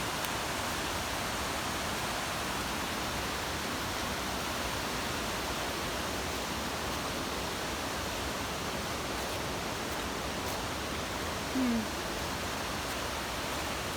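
Steady rushing of creek water, an even hiss with no change, and a brief falling vocal sound from a person near the end.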